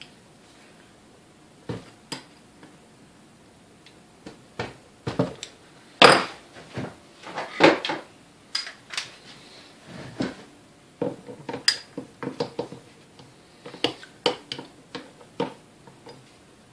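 Metal hand tools clinking and clattering in irregular knocks and rattles as pliers are worked at a stand mixer's planetary shaft and picked out of a tool bin. The loudest clatter is a few seconds in, and locking pliers are clamped onto the shaft near the end.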